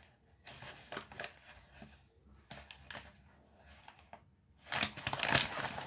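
Paper and packaging rustling in bursts as a parcel is handled and opened, loudest near the end.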